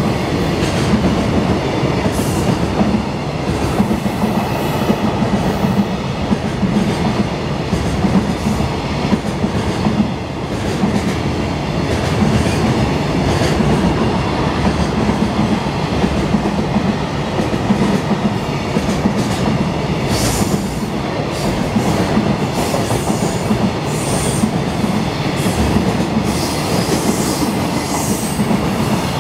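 Long freight train of container flatcars passing close by at speed: a steady rumble of wheels with clattering over rail joints. Short high squeals and clicks from the wheels come and go in the last third.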